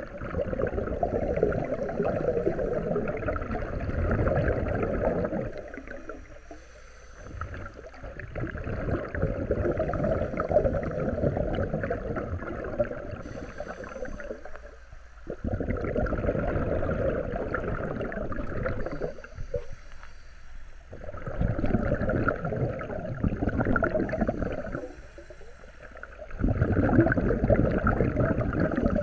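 Scuba regulator breathing heard underwater: long stretches of rumbling, gurgling exhaust bubbles, broken four times by short quieter pauses.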